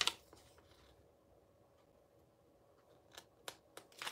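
Quiet room tone, then a few short papery rustles and clicks near the end as a printed instruction sheet is handled and turned.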